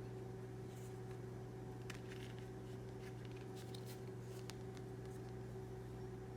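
Large tarot cards being handled, with faint brushing and light clicks as the cards slide against each other, over a steady low hum.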